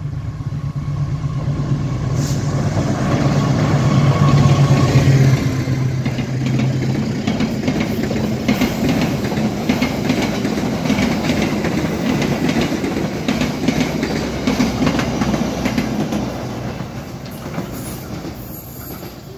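Indonesian KAI passenger train passing close by: the diesel locomotive's engine drones loudest about four to five seconds in, then the stainless-steel coaches run past with rhythmic wheel clatter over the rail joints, fading near the end.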